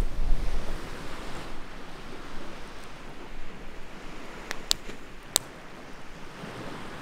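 Small waves washing on a sandy lakeshore, with wind rumbling on the microphone in the first second. Three sharp little clicks come between about four and a half and five and a half seconds in.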